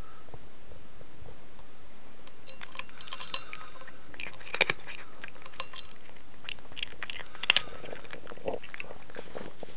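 Cat eating from a food bowl: chewing, with scattered sharp clinks of teeth or food against the dish, a few of them louder.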